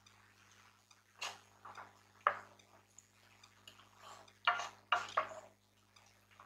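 Wooden spatula stirring mutton broth in a pressure cooker pot, with a handful of short, faint knocks and scrapes against the pot at irregular intervals.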